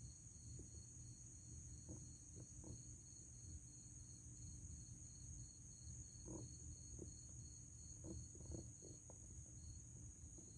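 Near silence: a steady high insect trill with a faint pulsing chirp about four times a second, and a scatter of faint soft ticks and rustles.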